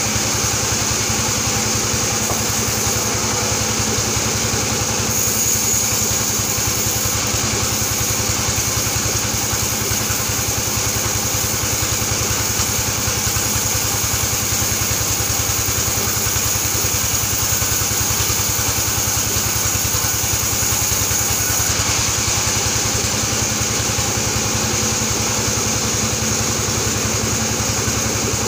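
Band sawmill running steadily: a constant machine drone with fine even pulsing and a high steady whine. A brighter high hiss joins about five seconds in and drops away about three quarters of the way through.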